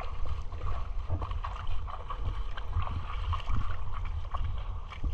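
Shallow sea water lapping and gurgling around rocks at the shoreline, with many small irregular splashes and crackles over a steady low rumble of wind on the microphone.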